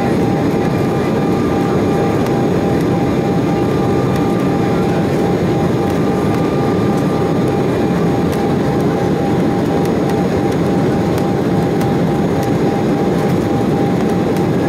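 Cabin noise inside an Embraer E190 airliner climbing after takeoff: the steady rush of airflow and the GE CF34-10E turbofans, with a thin whine held on one note throughout and a fainter higher whine that fades out about halfway through.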